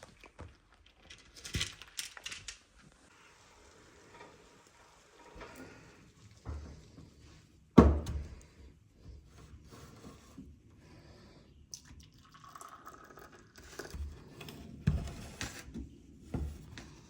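Scattered clicks, knocks and rustling of things being handled, with one sharp thump about eight seconds in.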